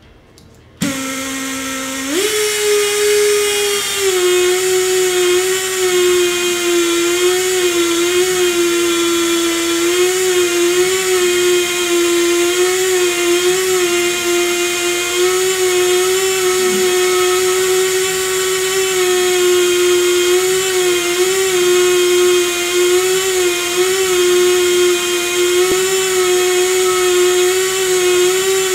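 Air motor of a Tri Tool 208B pipe beveling machine starting about a second in and running with a steady whine, its pitch stepping up about two seconds in and then holding with slight wobbles as the tool bit cuts a counterbore into stainless schedule 80 pipe.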